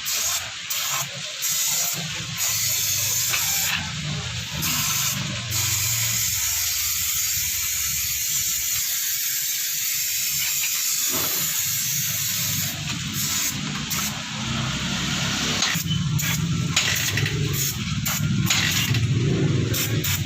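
Steady hiss of a pressurised spray or air jet, with a low hum underneath that grows louder near the end.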